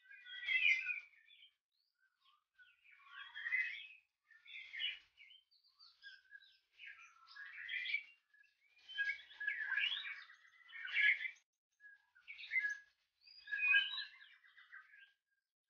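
Male white-rumped shama singing courtship song to a female: a run of about eight varied whistled phrases, each a second or two long, separated by short pauses.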